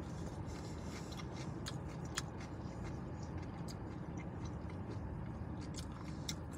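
A person chewing a mouthful of poke bowl, with small scattered mouth clicks, over a steady low background hum.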